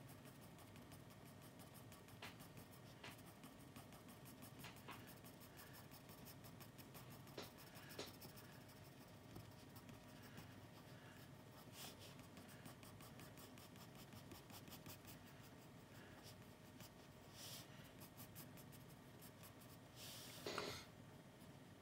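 Faint scratching of a pencil on sketchbook paper in short strokes, with one louder stroke near the end.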